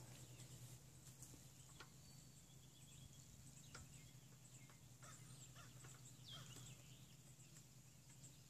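Near silence: faint outdoor ambience with a low steady hum and a few faint, short bird chirps.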